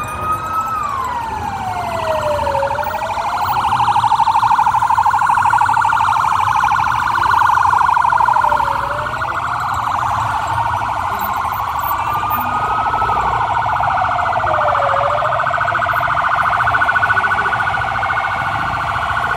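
Police vehicle sirens. One wails, rising slowly and dropping quickly about every six seconds, while a second holds a rapid warble underneath.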